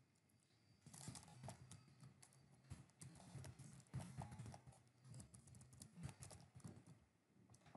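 Faint typing on a computer keyboard: a quick, irregular run of key clicks that starts about a second in and stops shortly before the end.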